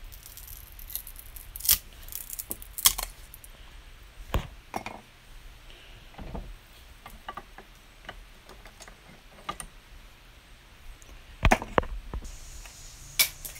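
Scattered metallic clicks and clinks with a few sharp knocks, from tools and a bench vise being handled.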